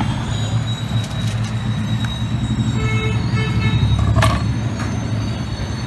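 Steady low rumble of road traffic and engines, with a short horn toot about three seconds in and a brief sharp clatter just after four seconds.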